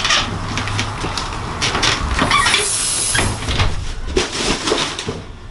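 Rustling and knocking of grocery bags, with footsteps, as shopping is carried in through an open front door; outdoor noise comes in through the doorway and eases off near the end.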